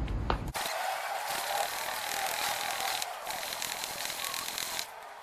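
Floor pump inflating a motorcycle inner tube, its repeated strokes played back sixteen times fast into a dense, high-pitched mechanical chatter that starts about half a second in.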